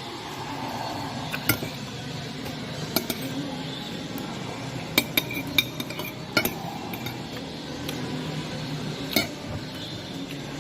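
Eating utensils clinking against dishware: about seven sharp, short clinks at irregular intervals, three of them in quick succession around the middle, over a steady low background hum.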